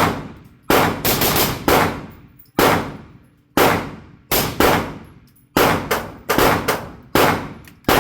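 Firearm shots: about a dozen gunshots in quick, uneven succession, each with a short ringing tail.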